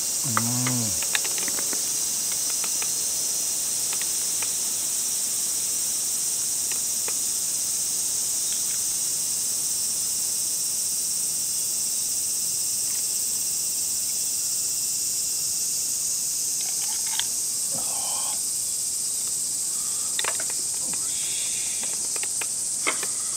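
Steady, high-pitched chorus of summer insects. A short falling vocal sound comes about half a second in, and a few light clicks and knocks come near the end.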